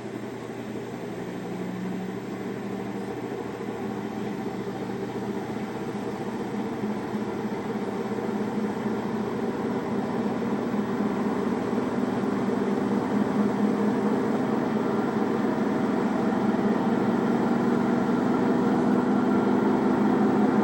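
Samsung washing machine with an empty drum on a spin-only cycle, the drum speeding up with a steady drone that grows gradually louder. The owner takes the noise for a bad bearing.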